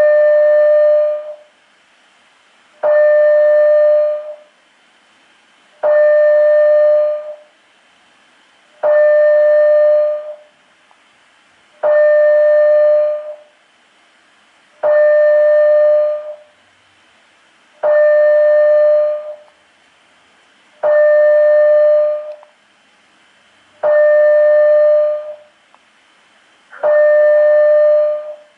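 Building fire alarm sounding a steady electronic tone in even pulses, each about a second and a half long, repeating every three seconds. This slow 20-per-minute pattern is the alert signal of a Canadian two-stage high-rise fire alarm system.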